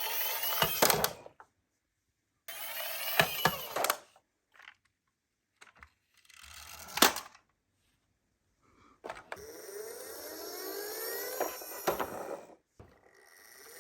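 Miniature toy ambulance car rolling, its wheels and gearing giving a clicking, rattling whir with sharp knocks, in several short runs separated by silence. In the last runs the whir rises in pitch as the car picks up speed.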